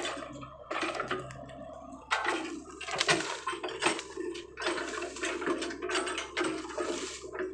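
Excavator engine running with a steady hum while the machine works in brush and flooded ground, with irregular rustling, crackling and splashing of vegetation and muddy water coming every half second or so from about two seconds in.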